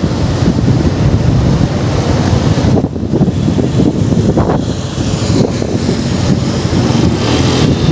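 Wind buffeting a helmet-mounted microphone on a moving motorcycle, with the bike's engine running underneath the rush.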